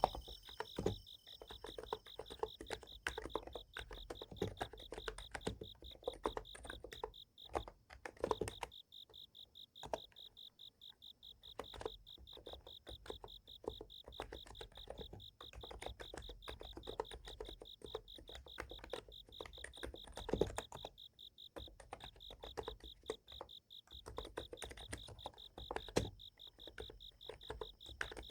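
Steady typing on a Niz Plum x108 electrostatic capacitive keyboard, irregular soft key clicks that thin out for a few seconds near the middle. Under it, night insects keep up a continuous high, pulsing trill.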